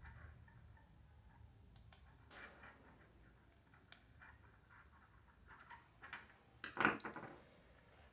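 Faint handling noises of hands working on a small power supply board: light clicks and scrapes of a small screwdriver and wires at its terminal block, with a louder brief handling noise about seven seconds in.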